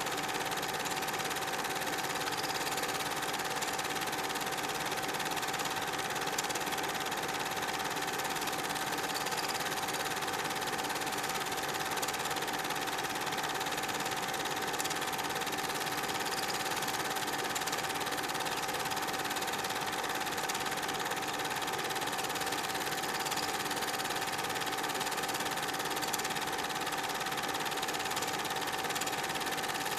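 Super 8 film projector running: a steady mechanical whir and clatter with a constant high hum over it.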